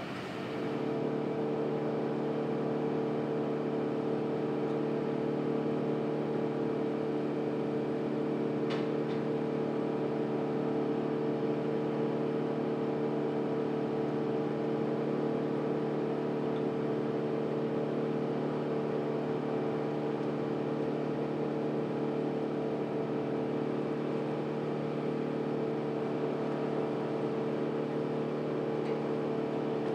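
An engine or motor running at a constant speed, a steady hum with no revving. One brief tick about nine seconds in.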